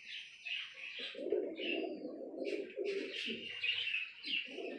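Domestic pigeons cooing in a loft, a run of low coos starting about a second in, with higher chirps over them.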